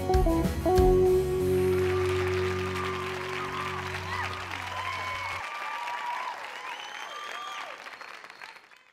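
A country rock band on guitars, bass and drums hits its final chord, which rings out and dies away over the next few seconds, while an audience applauds with whoops and cheers. The applause fades out near the end.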